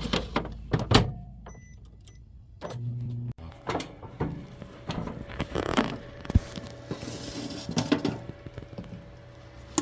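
A series of irregular clicks and knocks, handling or clattering noises, with a faint steady hum underneath.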